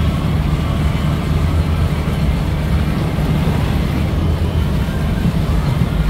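Spinning water ride running: its machinery gives a steady low drone, under water pouring from spouts along the trough's rim and splashing into the pool.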